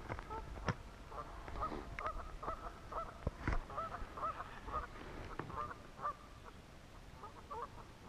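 Waterfowl honking: many short calls, often overlapping, thinning out near the end. A couple of sharp knocks are heard about a second in and a few seconds in.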